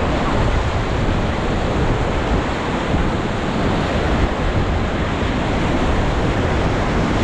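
Steady rush of whitewater around a raft running a river rapid, with wind on the microphone.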